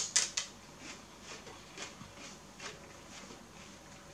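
A raw celery stalk bitten off with a loud crunch right at the start, then chewed with softer crunches about twice a second.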